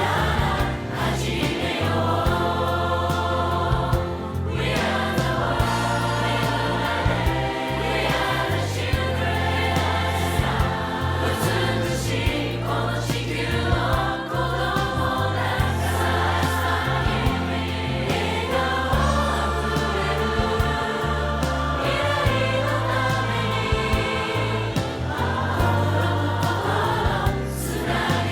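Background music: a song with a full, choir-like sung part over a steady bass and beat.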